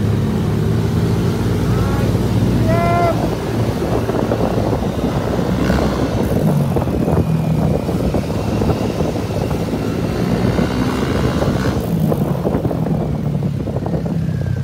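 Motorcycle and scooter engines running steadily while riding along in a group, a dense continuous drone. A brief higher-pitched tone cuts in about three seconds in.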